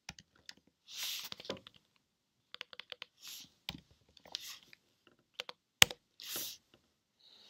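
Keystrokes and clicks on a computer keyboard as a short word is typed, in scattered taps with one sharp click standing out near the end. A few short rushes of hiss come between the keystrokes.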